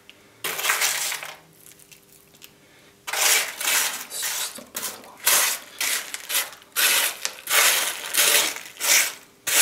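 Crisp crunching crackles as Maltesers (malted-milk chocolate balls) are broken up by hand. There is one short burst about half a second in, then a run of them from about three seconds on.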